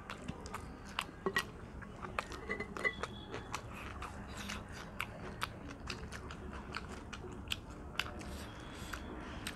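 Close-miked chewing and mouth smacking of people eating rice and curry by hand, with many irregular sharp clicks.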